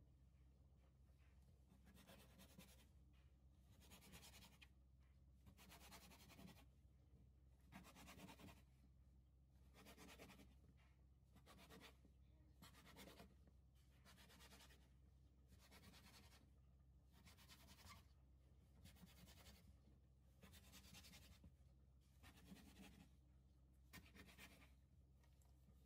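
Faint scratchy scrapes from a round metal cutter being pressed and twisted through rolled yeast dough against the counter, about one cut a second.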